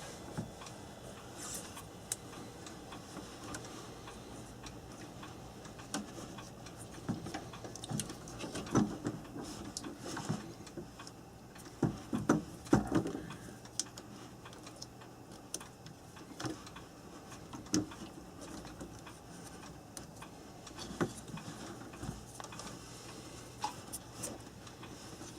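Irregular light clicks and taps of small parts and wiring being handled on a workbench, with a few louder knocks clustered around the middle, over a faint steady hum.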